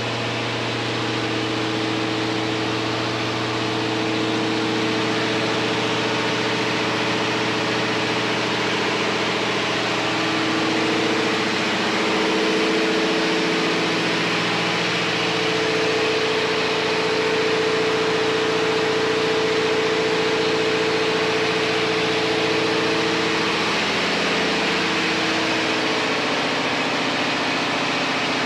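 Diesel engine-room machinery running steadily: a constant hum with broad machinery noise, its tones shifting a little a few times.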